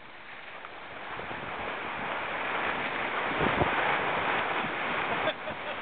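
Water rushing and hissing along the hull of an Etchells keelboat planing downwind in strong wind, mixed with wind on the microphone. The rush builds over the first few seconds and then holds steady, with a couple of low thumps about halfway through.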